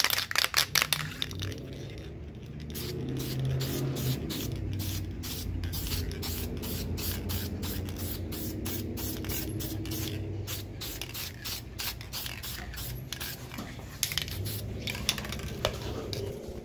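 Aerosol spray paint can spraying in many short hissing bursts, about two a second, stopping shortly before the end.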